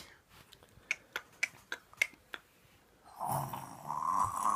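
About six light clicks, then from about three seconds in a recorded pig's grunting played back as a sound effect, continuing to the end.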